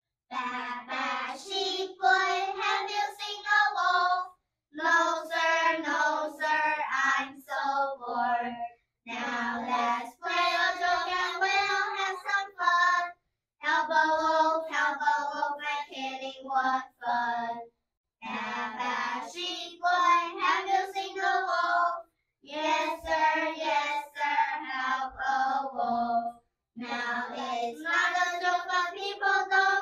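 Children singing a simple song without accompaniment, in short phrases separated by brief pauses.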